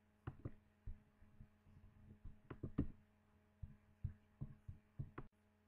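Faint, irregular soft knocks, about a dozen, from the shadow puppets being handled and shifted behind the screen, over a steady low electrical hum.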